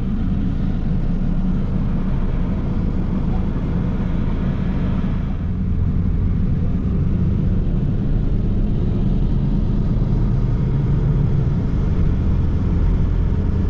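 A vehicle running steadily, a loud low rumble with a constant hum.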